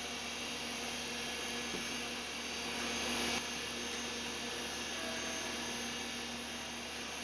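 IBM PS/2 Model 95 computer running with a steady whir and hum from its fans and drives, with a brief rise in hiss that cuts off about three and a half seconds in.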